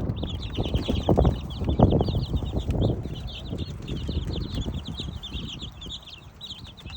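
A flock of young chickens peeping rapidly in short high chirps, over knocking and rustling that is loudest in the first three seconds and then fades.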